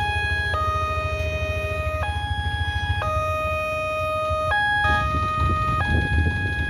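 Railway level-crossing warning alarm sounding, an electronic two-tone signal that keeps switching between a higher and a lower note, with a low steady rumble underneath.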